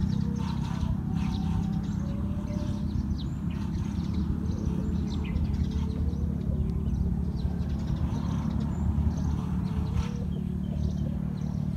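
Outdoor ambience: a steady low rumble with scattered short high bird chirps over it.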